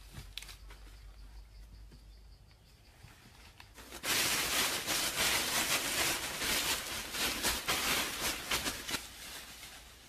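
Cut leafy branches rustling and crackling close to the microphone, starting suddenly about four seconds in and lasting about five seconds, with only faint rustles before.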